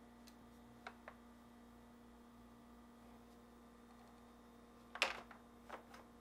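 Plastic clicks and knocks of a refrigerator's center mullion hinge being slid down onto the door's hinge retainers and seated: two light ticks about a second in, then a louder clatter of clicks near the end.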